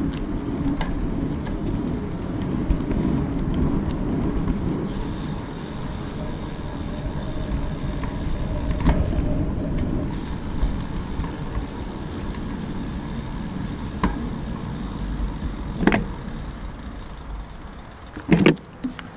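Bicycle rolling along a rough paved alley, heard from a handlebar-mounted camera: a steady low rumble of tyres on pavement and wind on the microphone, with a few sharp clicks and knocks from bumps. The noise eases off near the end as the bike slows at a street.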